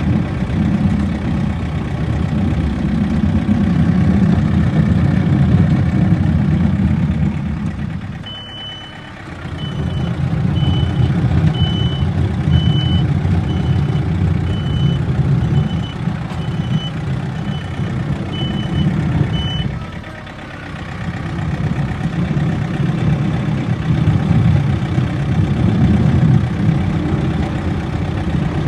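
Backhoe's diesel engine working hard and easing off briefly twice. Through the middle stretch its reverse alarm beeps about once a second as the machine backs up.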